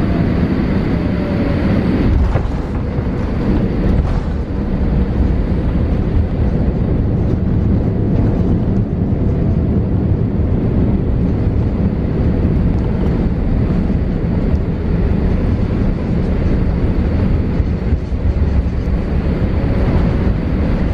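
Cabin noise heard at the window seat of a Boeing 787-8 rolling along the runway: a steady, loud low rumble from its Rolls-Royce Trent 1000 engines and the ground roll. In the first second a faint engine whine falls in pitch.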